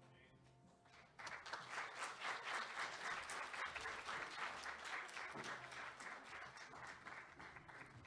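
Audience applause: many people clapping, starting suddenly about a second in and thinning out near the end.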